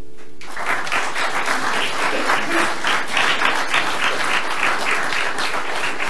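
Audience applauding, a dense patter of many hands clapping, starting about half a second in as the last acoustic guitar chord of the song dies away.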